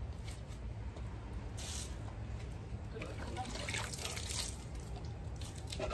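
Water tipped out of a plastic pot, spilling and splashing onto stone paving in short pours, the longest about four seconds in.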